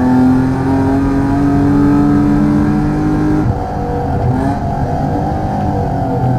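BMW 323i's straight-six racing engine pulling hard under throttle, its note rising steadily for about three and a half seconds, then the throttle lifts abruptly and the revs fall away, wavering lower for the rest of the stretch.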